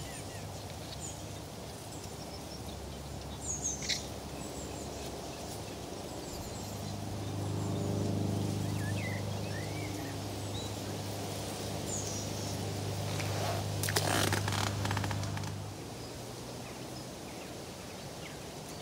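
Birds chirping now and then around a riverbank, under a low steady engine drone that builds about six seconds in and fades out about sixteen seconds in. A brief rustling clatter about fourteen seconds in.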